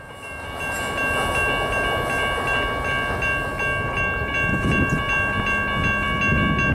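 Railroad grade crossing warning bell ringing steadily while the crossing lights flash, over a low rumble.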